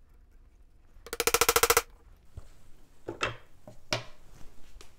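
Mallet tapping a steel 1/4-inch square hole punch into a wooden chair back splat: a quick rattling run of strikes with a ringing tone, lasting under a second about a second in. A few light single knocks follow near the end as tools are handled on the bench.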